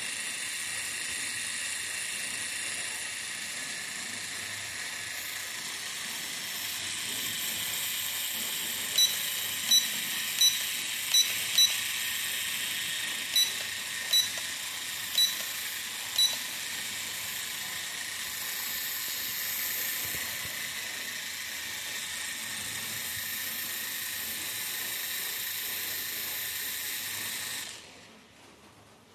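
Toy quadcopter's small motors spinning its propellers while it sits on the ground, a steady high-pitched whir. A run of nine short high beeps comes a third of the way in. The motors cut off about a second and a half before the end.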